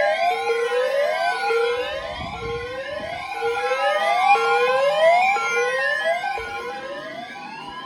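Sirens wailing, several overlapping: a fast rising whoop repeats about twice a second over a steady alert tone. Near the end a single slow wail rises and falls.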